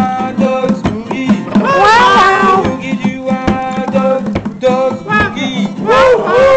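Acoustic guitar played in a steady boogie rhythm, with a man's voice singing along in short rising-and-falling phrases, strongest about two seconds in and again near the end.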